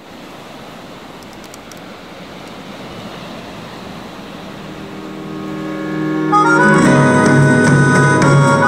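Surf washing over sea rocks, a steady rushing that slowly grows louder. About six seconds in, loud music with sustained chords starts and drowns it out.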